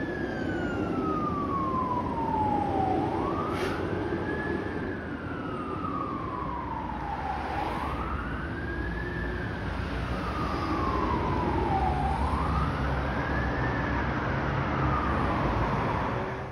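Fire ladder truck siren on a wail, a single tone that rises quickly and falls slowly about every four seconds, over a low engine and road rumble. It cuts off suddenly at the end.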